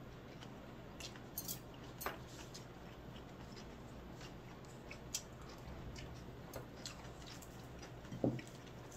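Quiet eating sounds: chewing, with a few light clicks of utensils against dishes, and a brief low voice sound near the end.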